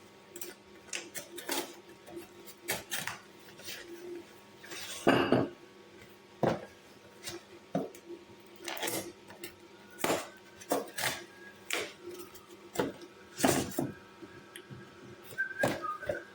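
Dishes and cutlery clattering as they are handled: a run of irregular knocks and clinks, a few sharper than the rest.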